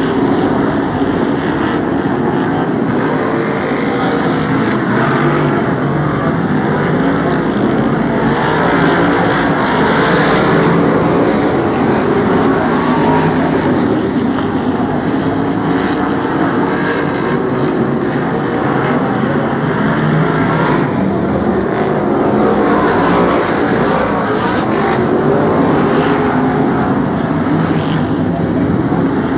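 A pack of BriSCA F1 stock cars racing, their V8 engines making a loud, dense, continuous engine noise that rises and falls a little as cars pass.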